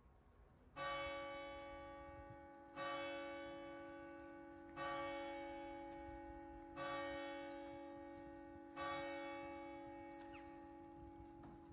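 A single church bell tolled five times, one stroke every two seconds, each stroke ringing on and slowly fading under the next.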